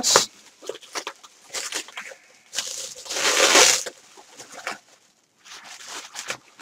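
Packaging rustling and crinkling as items are handled and pulled out of a delivery box, in short bursts with one longer, louder rustle about three seconds in.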